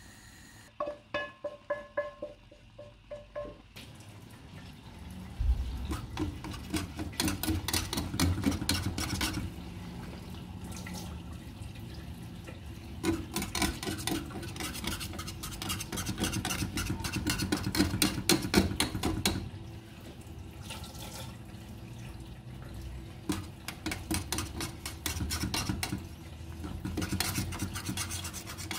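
A metal utensil taps a few times against cookware with a short ringing tone, then scrapes and stirs repeatedly against it in quick, uneven strokes.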